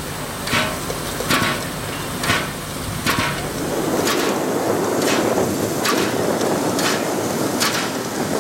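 Steam locomotive exhaust chuffing in slow, evenly spaced beats, a little under one a second. A steadier rushing noise builds underneath from about three seconds in.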